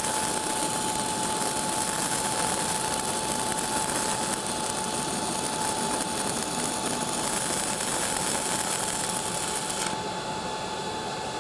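Stick-welding arc from a 6010 electrode crackling steadily during a downhill root pass at about 90 amps, dying down about ten seconds in.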